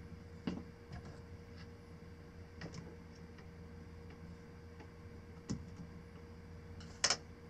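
A few light, sharp clicks and taps over a steady faint hum, the loudest near the end, as a hand handles N scale model freight cars on the track.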